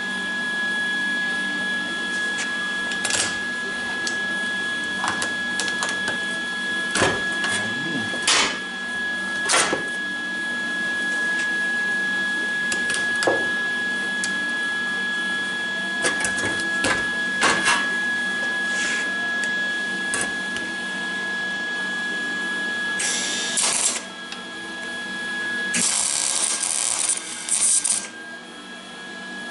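Electric arc welder running a weld on steel wheel chocks: a steady buzz with scattered sharp pops. The arc breaks off briefly twice near the end.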